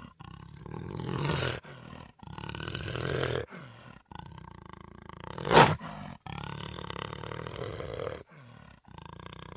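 Jaguar growling in a series of repeated growls, each lasting a second or so with short breaks between, and one short, loud snarl about halfway through.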